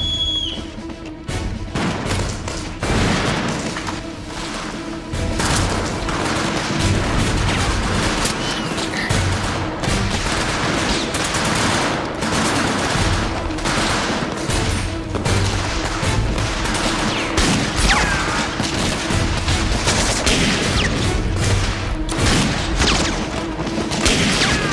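A whistle signalling the attack cuts off in the first second. Then massed rifle and machine-gun fire follows, shot after shot in quick succession without letup.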